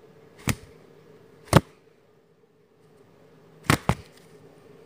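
Four sharp knocks right at the microphone from a pet dove perched on the phone: one about half a second in, another about a second later, then a quick pair near the end.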